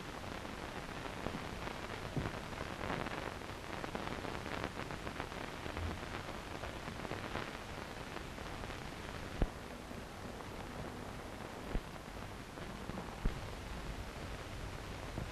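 Steady hiss and crackle of an old optical film soundtrack, with a few short pops in the second half.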